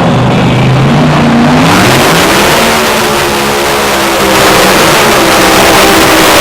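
Competition pulling tractor's engine revving up: its pitch climbs over about a second and a half, then holds at high revs under a loud rush of exhaust and turbo noise.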